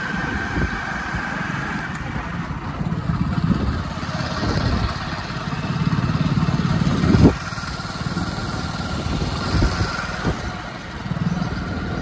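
Motorcycle engine running with a steady, uneven rumble, and a single sharp knock a little past the middle.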